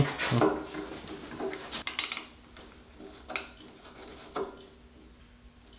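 A few light metallic clicks and taps from hand tools working a thread-repair insert into the spark plug hole of an aluminium cylinder head.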